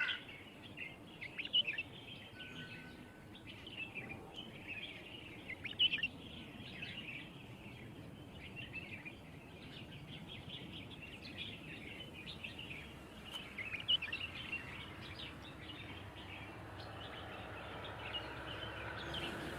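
Small birds chirping and twittering, many short high chirps overlapping continuously over a low background hum.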